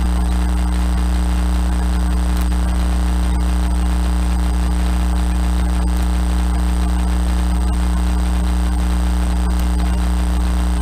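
A light aircraft's engine and propeller droning steadily in flight, heard inside the cockpit as a loud, even low hum.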